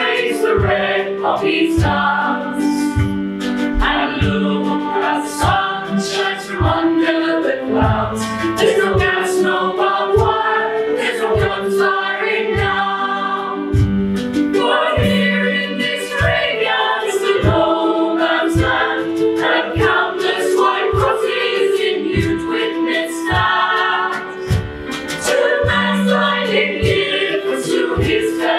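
A choir of cast voices singing a song with instrumental accompaniment, a violin among the instruments, over a regular beat.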